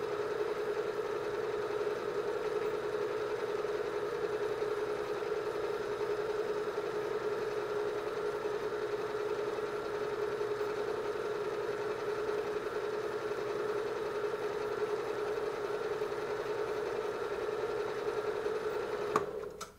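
PM-727 benchtop milling machine running with its spindle turning a roughing end mill, a steady hum. Near the end there is a click and the motor shuts off.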